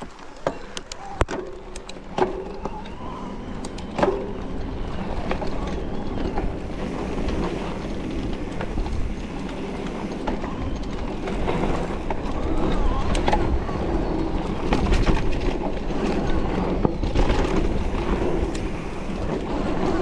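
Luna X2 electric mountain bike riding a dirt trail: tyres rolling over rough ground with wind buffeting the microphone, broken by frequent sharp clicks and knocks from the bike and the stones it hits. The rolling noise grows louder from about halfway through.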